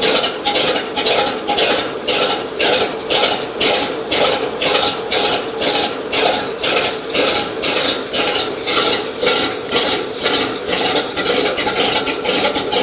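The GMC 503 V6 engine of a 1956 GMC 630 fire truck, turning over on its first start in 25 years, with a regular pulsing beat about twice a second.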